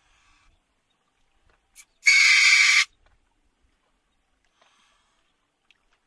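River otter screaming: one loud, harsh scream just under a second long, about two seconds in, just after a short faint squeak.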